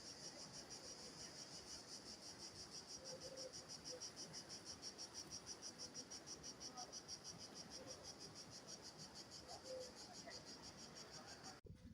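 Insects chirping in a fast, even, high-pitched pulse of several beats a second, which cuts off suddenly near the end.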